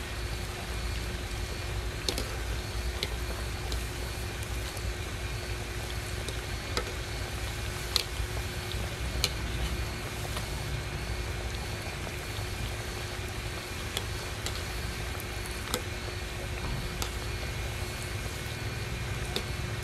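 Potato pakoras deep-frying in hot oil in a karahi: a steady sizzle, with a few sharp pops scattered through it.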